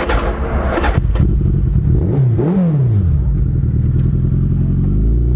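Suzuki Hayabusa inline-four engine running at idle, given one quick rev about two seconds in that rises and falls back over about a second. There is some clatter in the first second.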